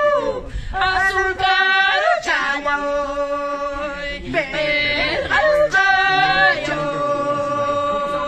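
Unaccompanied warawi, a traditional Quechua song of the Andes, sung by a man and a woman together in a run of long, high held notes.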